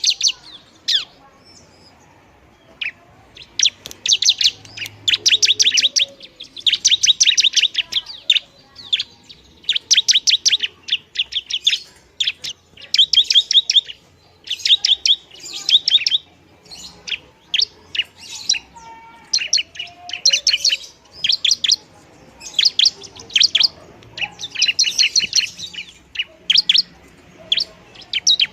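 Bar-winged prinia (ciblek) singing: fast rattling trains of sharp, high chirps, each train about a second long, repeated again and again with short pauses between them.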